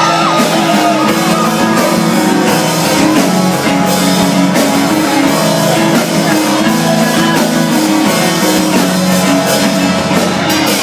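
Rock band playing a song in acoustic arrangement, live and loud: the instrumental opening, with guitar chords over steady electric bass notes.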